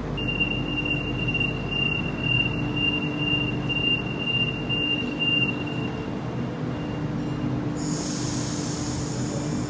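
Sydney Millennium double-deck electric train sounding its steady high door-closing warning tone for about five seconds while the doors shut, over the low hum of the idling train. Near the end a loud hiss starts suddenly.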